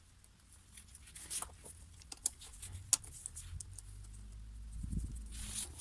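Scattered light clicks and taps of small metal hardware being handled: the nuts, bolts, spacers and washers that clamp a hedge trimmer's blades.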